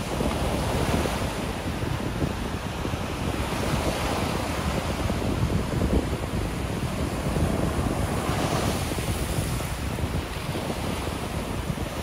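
Ocean shore-break surf breaking and washing up the beach in a continuous rush of overlapping waves, with one wash swelling louder about eight seconds in.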